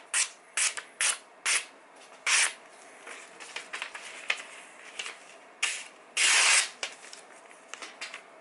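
Freshly sharpened kitchen knife slicing through a printed paper page in a series of short swishing cuts, with one longer, louder slice about six seconds in; the clean cuts show a sharp edge.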